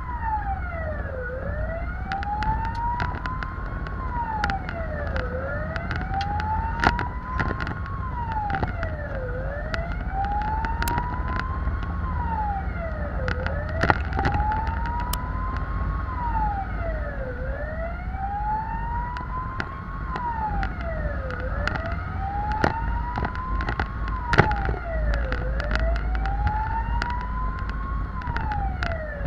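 Fire engine siren wailing, heard from inside the cab. Each cycle rises slowly and drops quickly, about every four seconds, over a steady higher tone and the truck's low engine rumble. A few sharp knocks stand out.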